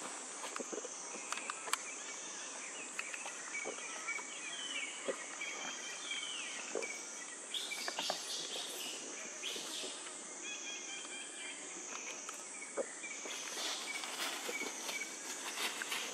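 Forest insects droning high and steady, the tone wavering slowly, with short bird chirps coming and going over it and a few small clicks.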